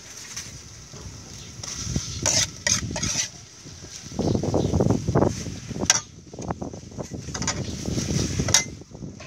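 Metal spatula scraping and clanking against a steel wok while noodles and bean sprouts are stir-fried, with several sharp clinks, over a steady high hiss.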